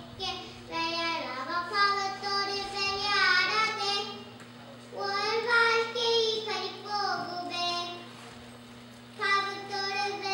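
A young boy singing solo into a microphone, holding long notes and gliding between them, breaking off briefly about four and eight seconds in. A steady low hum runs underneath.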